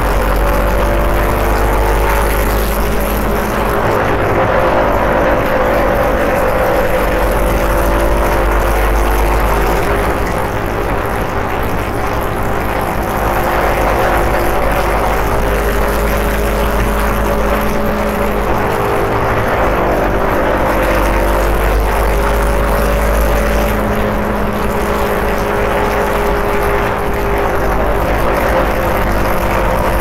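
Sport motorcycle engine running at a steady road speed, its pitch drifting slowly up and down, over a strong low rumble and a rushing noise of wind and road.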